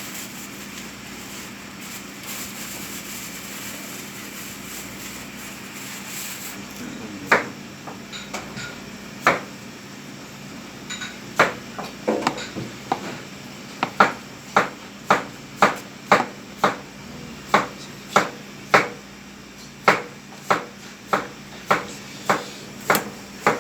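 Knife strokes knocking on a wooden cutting board as beef is cut, starting about seven seconds in and settling into a steady run of about one and a half knocks a second, over a steady hum.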